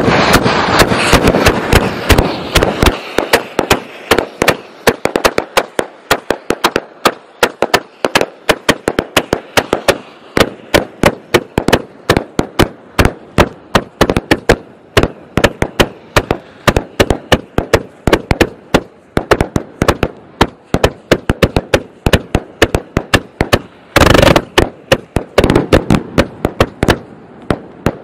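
An 81-shot Dempsey Roll fireworks cake firing salute shots: a rapid string of sharp bangs, about four a second, with a dense loud barrage at the start and a brief thicker burst near the end.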